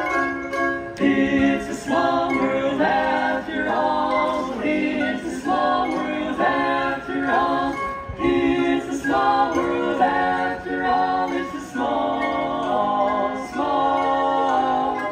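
Barbershop quartet singing a cappella in close four-part harmony, the chords changing every half second or so.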